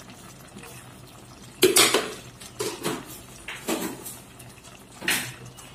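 Spoon and kitchen containers clinking and knocking about five times, loudest about two seconds in, as spices and seasonings are measured out by the tablespoon.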